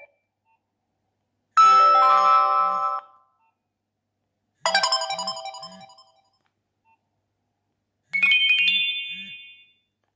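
Nokia 2760 mobile phone playing three short electronic tones through its speaker, one after another with gaps of about a second and a half between them. Each lasts about a second and a half, with a low triple pulse under each one, and the last tone is higher-pitched than the others.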